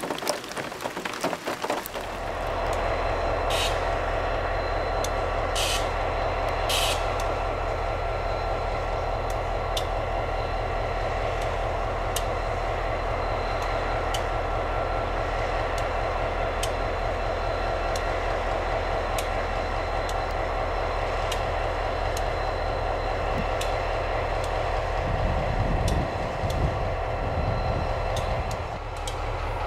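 Diesel freight train running: a steady low engine drone, with repeated clicks of wheels on the rails and three short high hisses a few seconds in.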